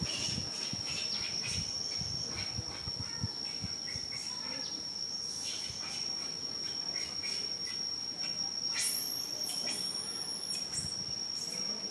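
Insect drone: one steady, high-pitched tone that does not break. Two short, even higher calls come in about nine and ten seconds in.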